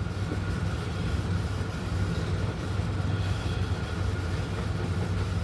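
A steady low mechanical drone with a faint steady whine above it, unchanging throughout.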